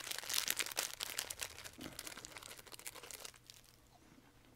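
Snack packaging crinkling as it is handled and opened, dense for about three seconds and then dying away to a few faint crackles.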